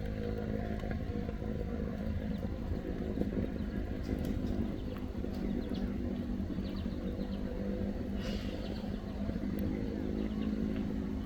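A vehicle engine running steadily, its pitch shifting a little, with a few light clicks and knocks over it about four and eight seconds in.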